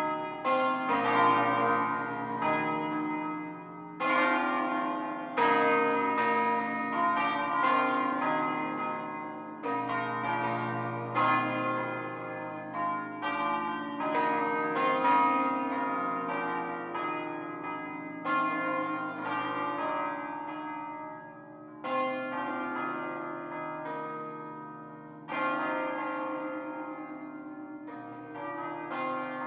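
Eight swinging church bells cast by Fratelli Barigozzi of Milan in 1894, with a B-flat tenor, ringing a solemn 'concerto' on their wheels. Strokes follow one another in sequence, and each note rings on under the next.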